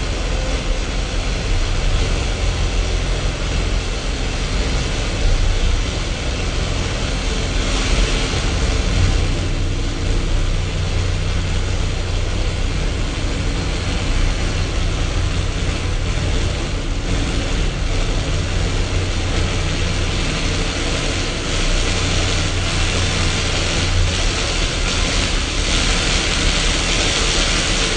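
Live experimental noise music: a steady low drone under a dense hiss, with faint held tones in the middle. The hiss swells about eight seconds in and again near the end.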